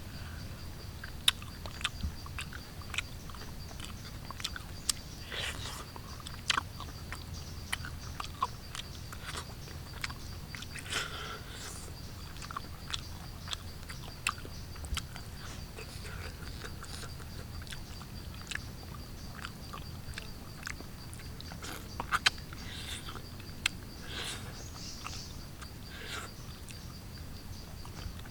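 A person eating: chewing and biting food, with many short, irregular mouth clicks and smacks.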